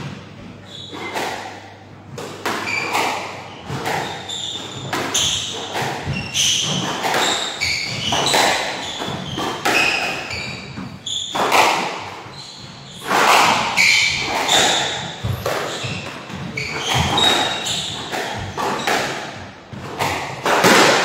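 A squash rally: the ball smacking off racquets and the court walls again and again at an uneven pace, with rubber-soled shoes squeaking on the wooden floor between the hits.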